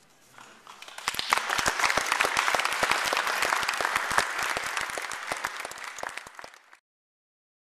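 Audience applauding. The clapping builds about a second in, holds, thins out, and cuts off suddenly near the end.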